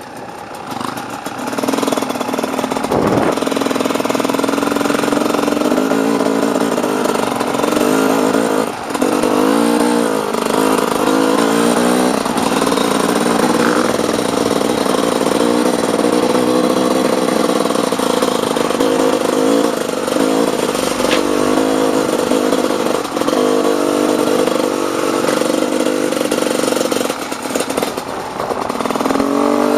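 Dirt bike engine running, its revs rising and falling repeatedly with several quick blips about ten seconds in and again near the end.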